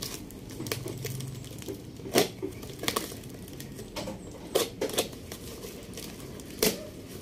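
Cutter knife slicing and tearing open a tightly taped cardboard parcel: crinkling of tape and cardboard with about five sharp rips.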